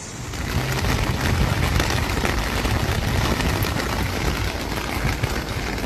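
Rushing floodwater: a steady, dense rush of water noise, heavy in the low end, building up over the first half second.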